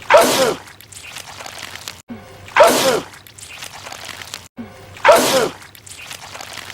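A man's sneeze, the same one repeated three times about two and a half seconds apart, each a sudden loud burst.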